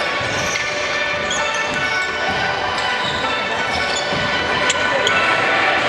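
Basketball being dribbled and bounced on the court during play, with music playing in the background.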